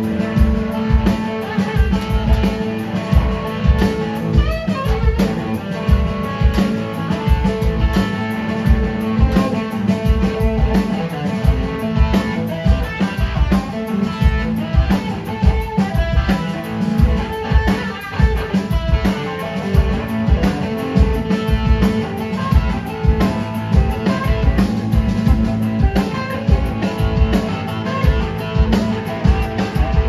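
Live band playing a blues-rock groove: electric guitars, electric bass and drum kit keeping a steady beat.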